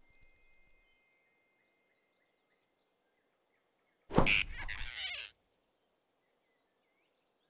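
Cartoon sound effect of a sudden grab about four seconds in: a sharp thump and swish with a startled cry from the animated flying squirrel, lasting about a second and cutting off abruptly. The rest is near silence with faint high chirps.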